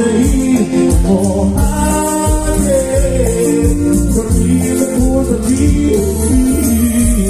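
A tropical cumbia band playing live, with singing over a steady beat and a rattling shaker.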